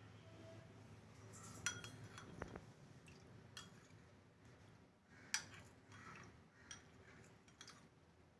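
Spoon stirring a drink in a cup, clinking faintly against the sides in scattered taps, the loudest about a second and a half in and about five seconds in.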